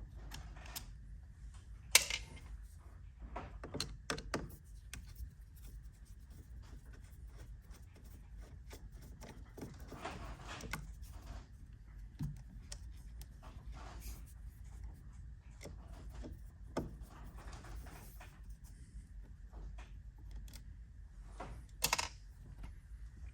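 Small clicks and taps of a Phillips screwdriver and hands working screws out of a steering-wheel cruise control switch, with a sharp click about two seconds in and another near the end.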